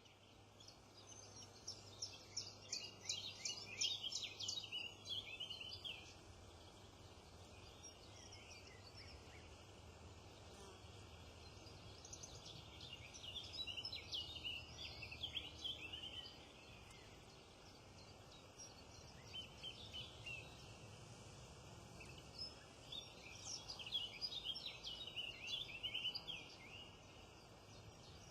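Small songbirds singing in three bouts of rapid, high chirping notes, each lasting a few seconds, over a faint steady low hum.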